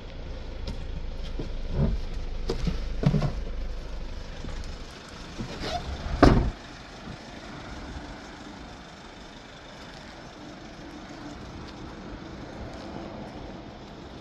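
2020 LDV Deliver 9's 2.0-litre turbodiesel engine idling, heard first from inside the cab with a deep rumble, with a few knocks. About six seconds in a door shuts with a loud bang, and the idle then carries on more quietly as heard from outside the van.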